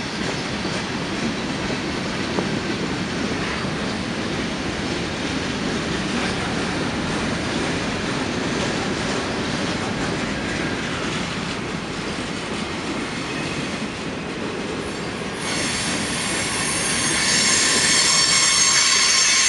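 Freight cars rolling past on the rails, a steady noise of wheels running over the track. About three-quarters of the way in it gets louder, and a high squeal of several tones at once from the wheels joins in.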